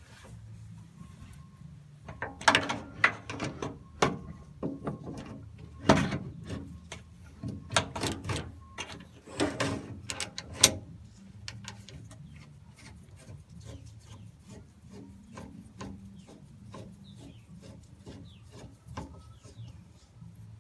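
Hand work on parts: irregular knocks, clicks and scraping or rubbing, dense and loud through the first half, then lighter scattered clicks.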